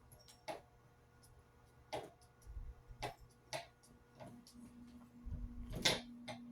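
Fidget spinner knocked about by a kitten: a string of uneven plastic clicks and taps, the loudest about six seconds in, with a steady low hum from about four and a half seconds in.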